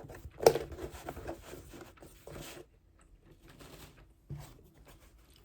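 Close-up handling noise, with rustling and scraping and a sharp click about half a second in, followed by a few faint ticks.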